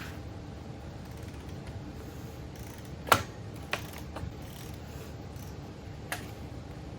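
Hand tools working on axle brake hardware: three sharp metallic knocks, the loudest about three seconds in, another soon after and a last one near the end, over a low steady background.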